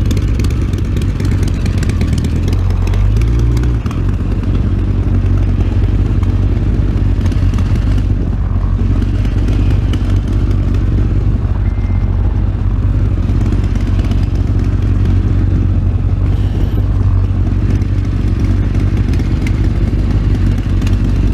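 Motorcycle engine running steadily at low revs as the bike rolls slowly, with a short rise in revs about three seconds in.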